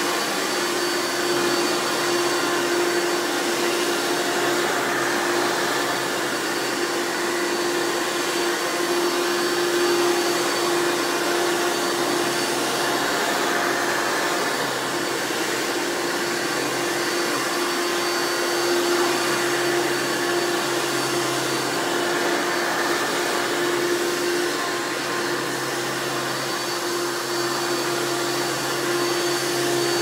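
Hoover Elite-based upright vacuum, a direct-air cleaner, running steadily while pushed over carpet: a constant motor hum with a rush of air.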